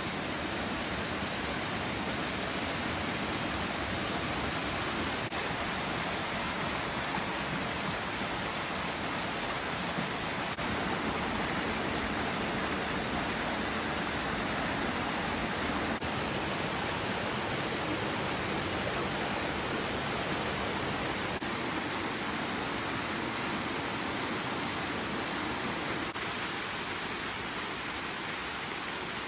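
Mountain stream water rushing and splashing over rocks, a steady even rush with no change in level.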